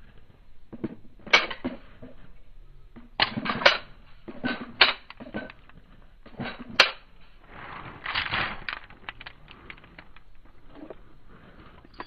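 Handgun being handled: sharp metallic clicks and clacks in irregular clusters, the sounds of a pistol's slide and magazine being worked during malfunction-clearing drills, with no shots fired.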